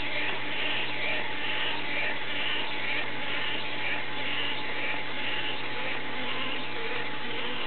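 Clockwork motor of a 1977 Tomy wind-up crawling baby toy running, a steady whirr that pulses about twice a second as its plastic arms and legs crawl, over a steady low hum.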